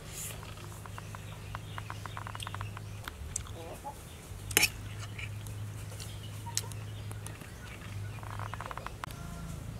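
Chickens clucking in the background over a steady low hum, with runs of quick clicks. About four and a half seconds in, a metal spoon clinks sharply against a ceramic plate of food.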